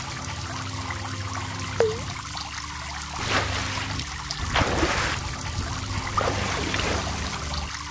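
Water sound effects trickling and splashing over a low steady hum. There is a short bloop about two seconds in and a few louder splashy surges in the second half.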